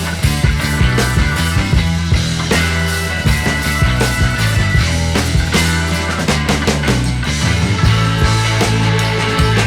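Background rock music with a steady drumbeat and sustained bass notes.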